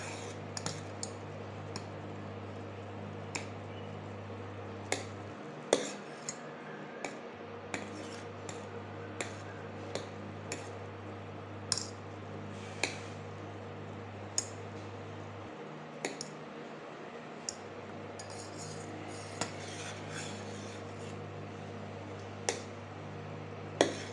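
Long metal spoon stirring a stainless steel saucepan of thickening custard milk, with irregular sharp clinks of the spoon against the pan. A steady low hum runs underneath and drops out twice for about two seconds.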